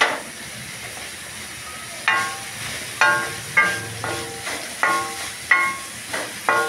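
Shredded cabbage, carrot and capsicum sizzling in oil in a hot metal kadhai while a wooden spatula stir-fries them. From about two seconds in, the spatula knocks the pan about six times, and each knock sets the metal ringing briefly.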